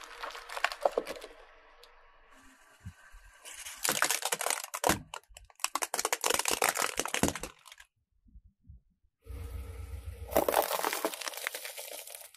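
Car tyre rolling over and crushing small objects on asphalt: sharp crackling and popping in four bursts of one to two seconds each, with short breaks between.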